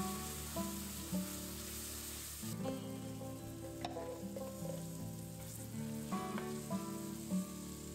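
Rice and vegetables sizzling as they fry in a pot and are stirred with a wooden spoon; the sizzle drops away abruptly about two and a half seconds in. Soft background music with steady melodic notes plays throughout.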